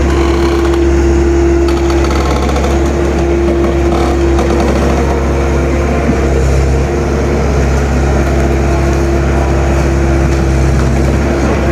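Excavator's diesel engine running loud and steady under working load, a constant low hum with a steady whine over it, while it digs out a large tree's roots.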